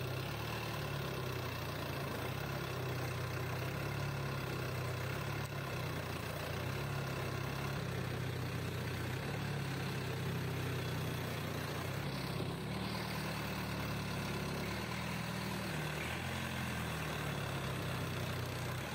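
Long-tail boat's engine running steadily from on board, with water rushing along the hull; the engine note shifts up a little about twelve seconds in.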